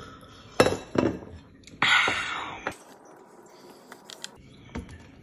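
A ceramic mug knocking twice on a glass tabletop, loud and sharp, then a breathy sigh after a sip of tea that fades away. Faint small clicks and soft handling sounds of pancakes being picked up from a plate follow.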